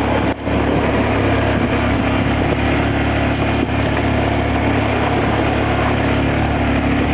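Yamaha Grizzly 450 ATV's single-cylinder four-stroke engine running steadily, with a brief dip in level about a third of a second in.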